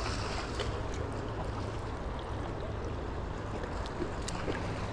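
Steady rush of fast-flowing river water, an even noise with a few faint clicks.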